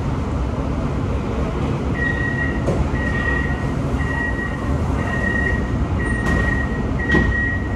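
Metro train door-closing warning: a high beep repeated about once a second, six times, starting about two seconds in, over the steady low hum of the standing train. A few sharp clicks.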